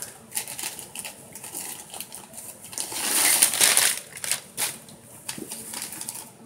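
Packing material crinkling and rustling as a shipping box is rummaged through, with scattered clicks and a louder stretch of crinkling around the middle.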